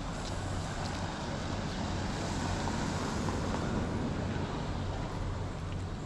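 A passing motor vehicle: a rushing noise that swells about two seconds in and eases near the end, over a steady low hum.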